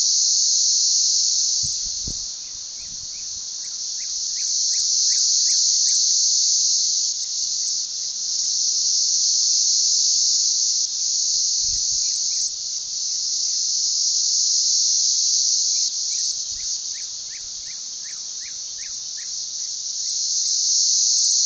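Loud chorus of cicadas singing, a dense high-pitched buzz that swells and fades in slow waves, reaching about 86 decibels on a sound level meter. Twice a run of short, quick chirps sounds beneath it.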